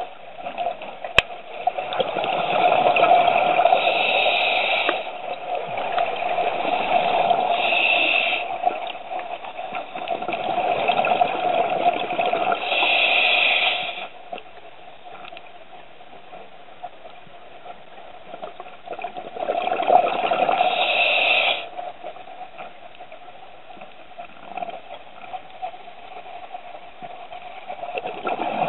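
A scuba diver breathing through a regulator, heard underwater: a loud rush of exhaled bubbles every several seconds, over a steady hiss of water.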